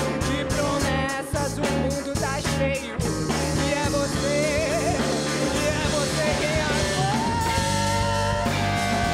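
A rock band playing live: electric guitar, bass guitar and drum kit, with a male singer's voice wavering over the band.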